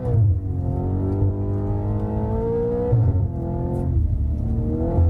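An Audi quattro car's engine accelerating hard through the gears. Its pitch climbs steadily, then drops at an upshift near the start, about three seconds in, and again at the end.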